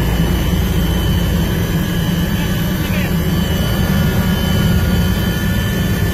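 Helicopter cabin noise in flight: the steady drone of the rotor and turbine engine, with a constant high-pitched whine over it.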